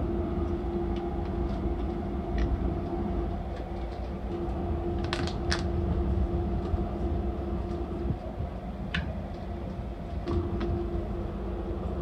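Docklands Light Railway train heard from inside while running: a steady low rumble under a steady whine, with scattered sharp clicks and knocks, the loudest a pair about five seconds in. The whine drops out for a couple of seconds about eight seconds in, then returns.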